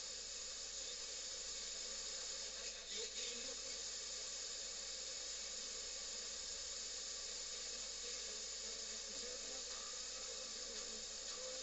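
Steady static hiss from an FM radio's speaker, a sign of weak reception or the radio sitting between stations.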